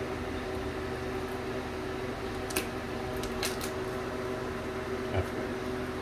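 A steady mechanical hum, like a fan or appliance running, with a few short sharp clicks a little before the middle and a low knock near the end.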